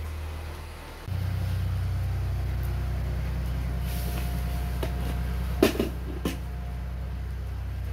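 A steady low rumble that steps up in level about a second in, with a few sharp knocks a little past the middle.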